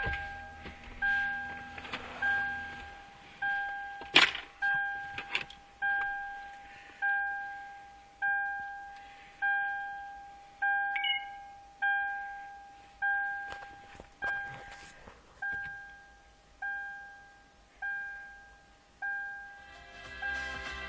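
A Toyota Land Cruiser 200's in-cabin warning chime dinging over and over, one ringing ping about every 1.2 seconds, with a sharp click about four seconds in. Radio music comes on near the end.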